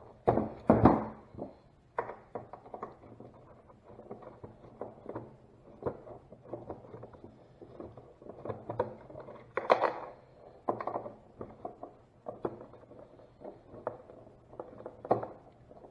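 Irregular clicks, knocks and scrapes of hand tools and parts being handled while taking apart a car dash assembly, with a few louder knocks about a second in, about two-thirds of the way through and near the end.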